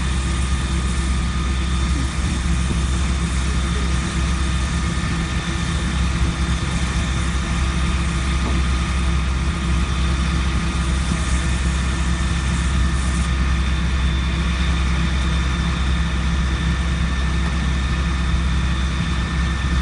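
A fire engine's engine running steadily while pumping water to the hoses: a constant low drone with a steady hiss over it.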